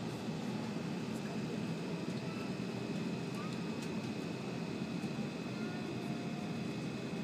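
Steady running noise of an E7 series Shinkansen heard inside the passenger car at speed: an even low rumble with a faint steady high tone above it.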